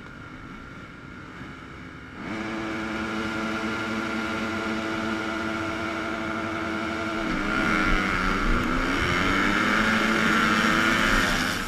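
A field of motocross bikes at the start gate, engines held at steady high revs from about two seconds in. A few seconds later the gate drops and the engines rise and change pitch as the pack launches and accelerates away, louder, with wind and dirt noise.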